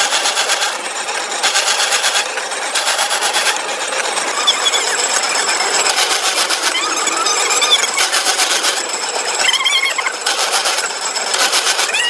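Industrial metalworking machinery running, with a fast, even rattle that starts and stops in stretches of about a second and short squeals in the middle and near the end.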